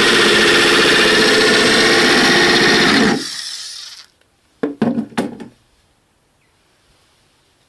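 A machine running loudly and steadily, with a buzzing whine made of several tones, likely the washing-machine motor test rig. About three seconds in it shuts off suddenly and winds down over roughly a second. A few short knocks follow, then near silence.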